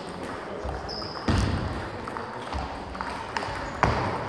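Table tennis ball clicking off paddles and table in a short rally, with two louder knocks about a second and a half apart. A brief high squeak comes just before the first loud knock.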